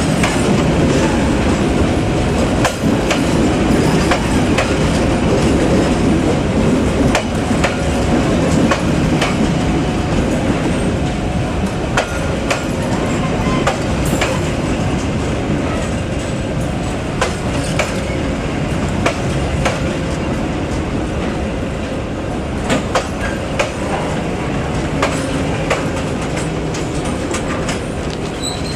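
Indonesian KAI passenger coaches rolling past close by: a loud, steady rumble of steel wheels on the rails, with sharp clicks as the wheels cross rail joints.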